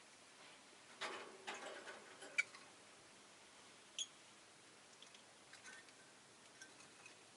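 Rosy-faced lovebird in its cage, mostly quiet: a brief scratchy, clicking rustle about a second in, then a few short, high single peeps.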